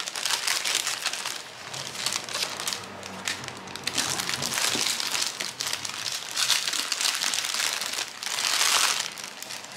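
Clear plastic packaging bags crinkling as they are handled, lifted and turned over: a continuous run of crackles, loudest near the end.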